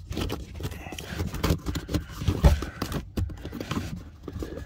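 Irregular plastic clicks, knocks and scraping as a cabin air filter is pushed up into its housing under an Audi A6 C7's dashboard, with a louder knock about two and a half seconds in.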